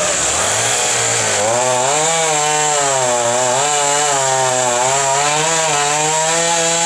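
Husqvarna 450 50cc two-stroke chainsaw at full throttle cutting through a thick log, the engine pitch rising and falling as the chain works through the wood.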